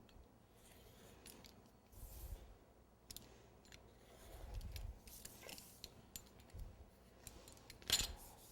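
Cutting strips along a ruler: light scrapes and small clicks of the cutter and ruler on the work surface, with a sharper click about 8 seconds in.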